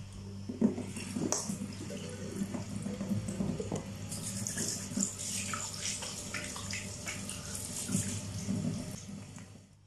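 Kitchen mixer tap running into a stainless steel sink while hands are washed and rubbed under the stream, with irregular splashing. The water cuts off just before the end.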